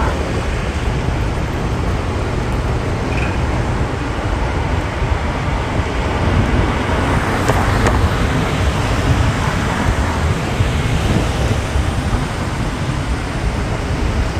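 Steady road traffic noise with a heavy low rumble, and a brief faint high sound about three seconds in.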